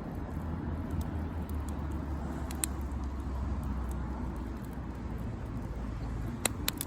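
Wood campfire crackling, with a few sharp pops, one a few seconds in and three close together near the end, over a steady low rumble.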